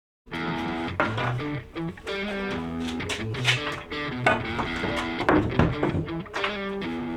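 Background music led by guitar, starting about a quarter second in after a brief silence.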